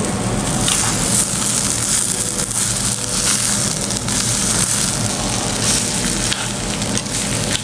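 Rice and vegetables sizzling in a hot stone bibimbap bowl (dolsot) as a metal spoon stirs them, with short scrapes and clicks of the spoon against the stone.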